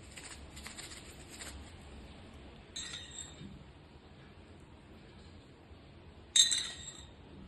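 Kitchen utensil clinking against a dish: a run of light taps in the first second and a half, a ringing clink near three seconds, and a louder, sharper ringing clink about six and a half seconds in.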